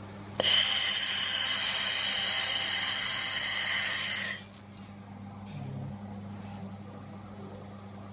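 Handheld 1000 W fiber laser welder making a weld: a loud, high hiss that starts suddenly about half a second in and cuts off about four seconds later. A steady low hum runs underneath.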